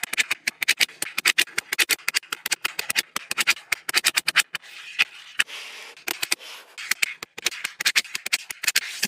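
Small magnetic balls clicking and snapping together as strips of them are pressed into place, many quick irregular clicks. Softer stretches of a steady rustle come about five seconds in and again near the end.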